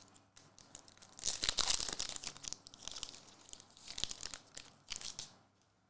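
A foil trading-card pack wrapper crinkling and tearing as it is opened by hand, in uneven bursts of crackling rustle that stop about five and a half seconds in.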